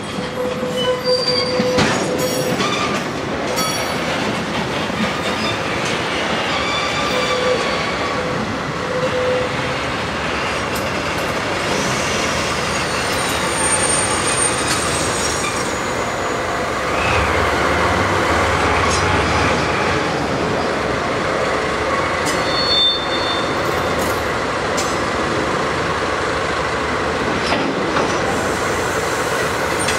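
A train of oil tank wagons rolls past with wheel squeals and clatter from the rails, and high thin squeals come and go. About halfway through, a pair of DD51 diesel-hydraulic locomotives passes, and their engines add a low rumble.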